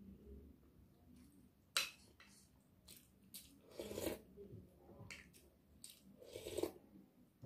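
Close-miked eating sounds: a spoon knocks sharply once against a bowl about two seconds in, then chewing and mouth smacks come in two short spells as spoonfuls of rice vermicelli are eaten.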